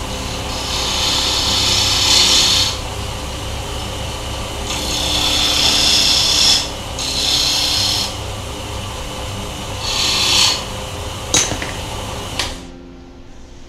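Wood lathe running while a small chisel cuts into the spinning wooden mallet head. The cutting noise swells and eases in several passes over a steady motor hum, and everything stops abruptly near the end.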